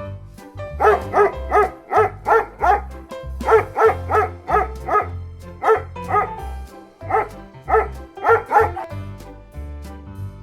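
A dog barking repeatedly in quick runs of several barks, over light children's background music.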